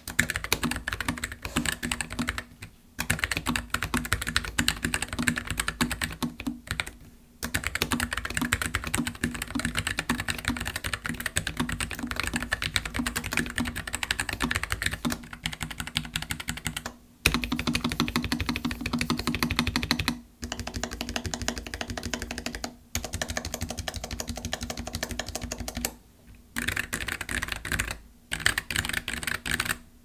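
Fast typing on an Azio Cascade Slim low-profile mechanical keyboard with Gateron low-profile brown tactile switches and foam dampening in the case: a steady clatter of keystrokes, broken by a few short pauses.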